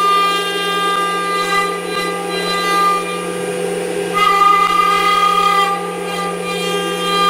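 CNC router's HSD automatic tool change spindle running at speed and routing, a steady high whine of several fixed tones that grows louder about four seconds in as the cutter works.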